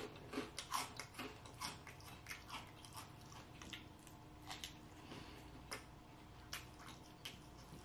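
A person chewing food close to the microphone: soft wet mouth clicks and small crunches, frequent at first and thinning out after a few seconds.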